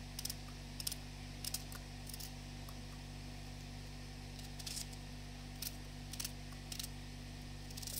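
A knife cutting an onion in the hand, about ten crisp, irregularly spaced snicks as pieces are cut off into a bowl of melted fat, over a steady low hum.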